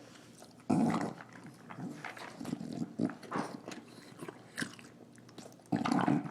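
English bulldog snorting and snarling as she eats her dinner, with chewing between the snorts. Two loud snorting bursts stand out, one about a second in and one near the end.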